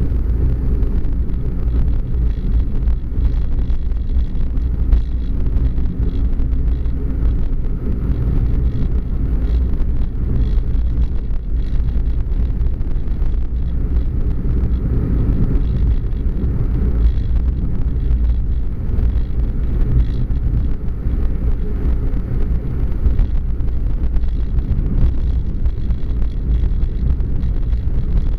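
Car driving at steady speed, heard from inside the cabin: an even, low rumble of engine and tyre noise on asphalt.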